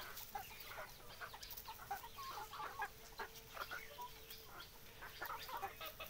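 A flock of free-range desi chickens clucking quietly, many short calls from different birds overlapping.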